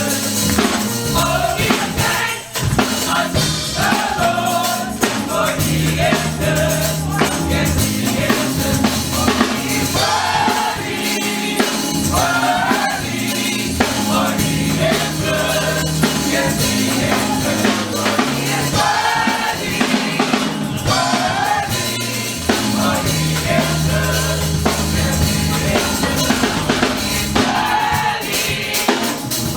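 Gospel choir singing with a live band: held bass notes under the voices, with tambourine and drums keeping the beat.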